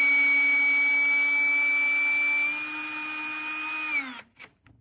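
Power drill with a magnetic bit holder running steadily with an even whine as it drives a screw through a pre-drilled cabinet door. The whine gets quieter about two and a half seconds in, then winds down and stops, followed by a couple of faint clicks.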